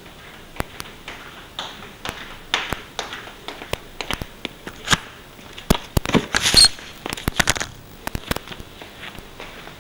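Handling noise as a crashed tiny-whoop FPV drone is picked up and set down on the floor: scattered clicks, taps and rustles, busiest and loudest about six seconds in, with no motor whine.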